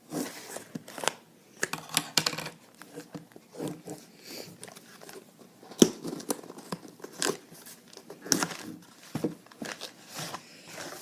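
A kendama's shipping box and its wrapping being opened by hand: irregular tearing and crinkling of packaging, with short sharp rips and rustles.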